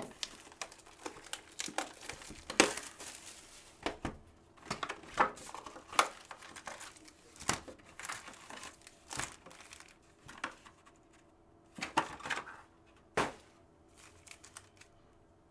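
Plastic trading-card packaging being torn open and crinkled by hand: irregular crackling and sharp rustles, with quieter gaps between handlings.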